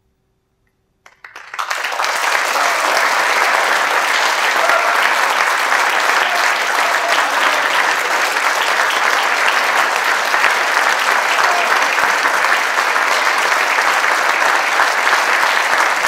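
After about a second of near silence, a concert-hall audience starts applauding and keeps clapping steadily.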